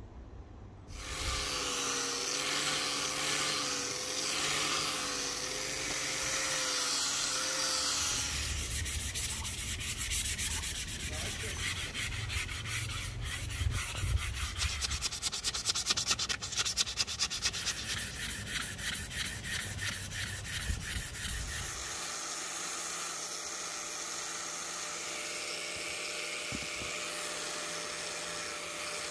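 Sandpaper rubbing on a rosewood axe handle. The middle stretch is quick, rhythmic back-and-forth strokes. Near the end the sound turns steady, with a low hum under it.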